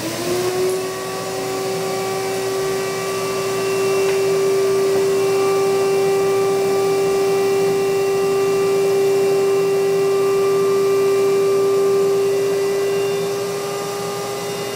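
Shop vac motor running with a steady whine, pulling the air out of an inflatable culvert plug through a valve taped into the end of its hose to deflate it. It settles to its steady pitch right at the start, then grows a little louder over the first few seconds.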